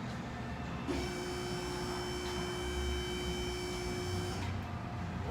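Small electric motor whining at a steady pitch for about three and a half seconds, starting about a second in and cutting off: a powered jack or lift raising the car.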